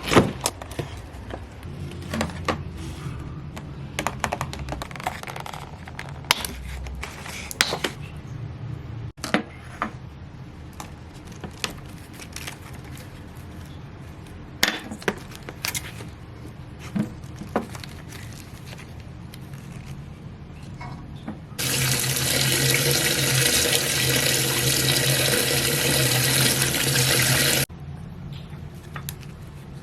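Scattered light clicks and knocks of things being handled, then a tap running for about six seconds and shut off abruptly.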